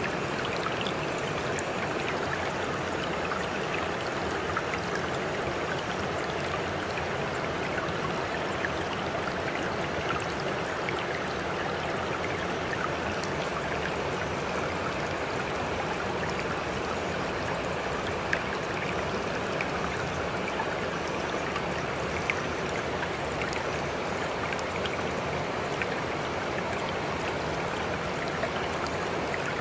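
Steady running water, like a babbling stream, at an even level with a few faint ticks: the water track that covers a subliminal recording.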